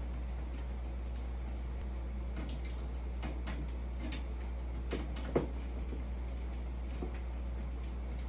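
Scattered light clicks and taps from hands working on the enclosure's frame, with one sharper knock about five seconds in, over a steady low hum.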